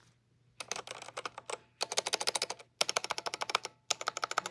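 Womier WK61 mechanical keyboard with red linear switches being typed on for a sound test: four quick runs of rapid keystrokes separated by short pauses, after a brief quiet moment at the start.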